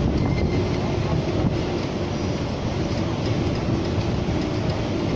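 Strong wind buffeting the microphone on an open ship deck: a steady, heavy, low rumble.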